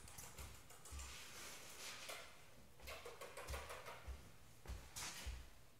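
Footsteps of a person in soft slip-on shoes walking on a laminate floor: dull thuds a little more than half a second apart, with a couple of brief scuffs.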